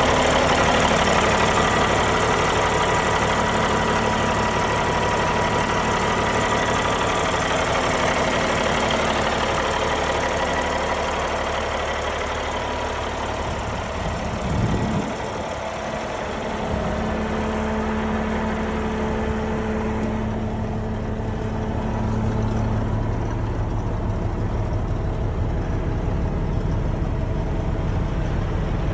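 Caterpillar 3406B inline-six diesel of a 1991 International Eagle dump truck idling steadily. There is a brief bump about halfway, and in the second half the idle sounds duller, heard from inside the cab.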